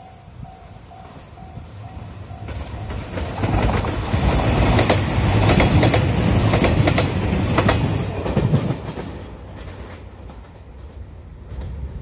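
A JR Shikoku 2700 series diesel limited express train passing close by: its rumble builds as it approaches, is loudest as it goes past with wheels clicking over rail joints, then fades as it draws away. A level-crossing warning bell dings steadily at first.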